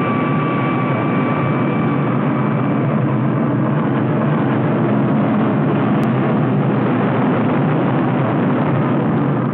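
Four-engine jet airliner taking off and climbing away: a loud, steady jet roar, with a high turbine whine that fades out about three seconds in.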